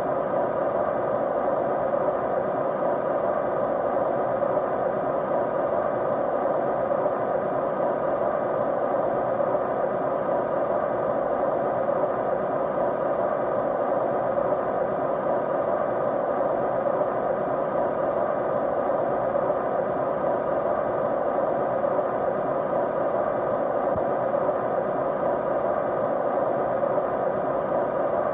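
Steady white noise: an even, unchanging rush, strongest in the middle range, with no breaks or events.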